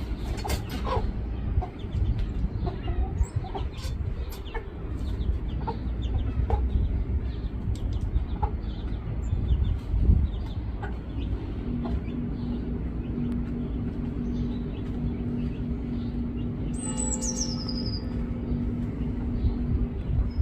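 Backyard chickens clucking in short, scattered calls over a constant low rumble. About halfway through, a steady low hum joins in, and near the end a single high whistle falls in pitch.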